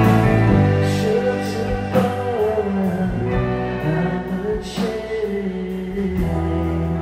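A rock band playing live: electric guitars, bass, drums and violin together, with a wavering lead melody through the middle of the passage.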